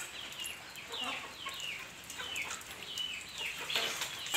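Free-range country chickens (naatu kozhi) calling: a run of short, high, falling chirps, several a second, with a louder call near the end.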